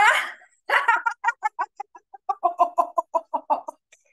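A woman doing a laughter-yoga laugh on a single exhale: a long open 'Aaa', then a rapid run of staccato laugh pulses, about five a second, moving through the vowels A, O and I.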